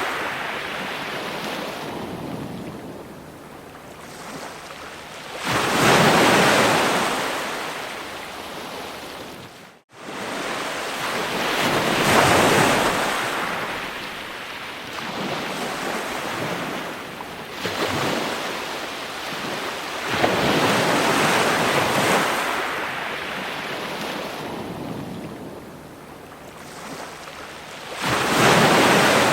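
Ocean waves breaking on a shore, each wave swelling into a loud rush of surf and then washing back, about every few seconds. The sound drops out to silence for an instant about ten seconds in.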